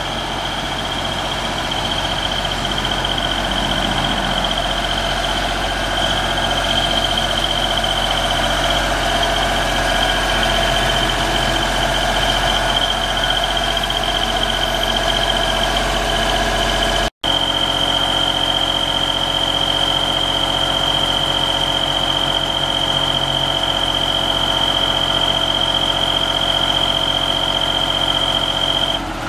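The Deutz diesel engine of a 2006 JLG 450AJ articulating boom lift running steadily while the boom is worked, with a steady high-pitched tone over it that cuts off near the end. The sound drops out for a split second just past the halfway point.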